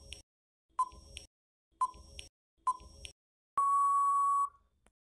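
Quiz countdown timer sound effect: four short ticks about a second apart, then one long steady beep of about a second signalling that time is up.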